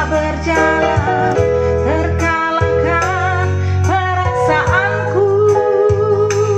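A woman singing an Indonesian ballad into a microphone over backing music with guitar, ending on a long held note with vibrato.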